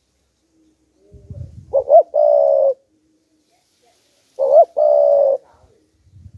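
Spotted dove cooing: two phrases about three seconds apart, each a couple of short rising notes followed by a longer held coo.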